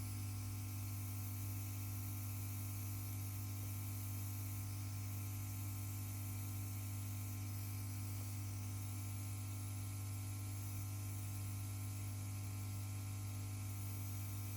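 Steady electrical mains hum with a faint hiss, unchanging throughout, with no other sound over it.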